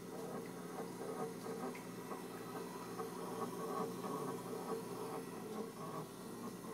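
Fan in a brand-new Frigidaire refrigerator making a steady, fast, irregular rattling chatter. The noise stops when the fan stops, which marks the fan as the fault.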